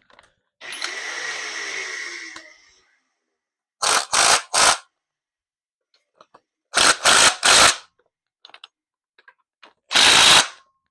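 Power tool run on the clutch bolts while the clutch is being tightened down. It runs steadily for about two seconds near the start, then in short trigger bursts: three quick ones, three more, and a last one near the end.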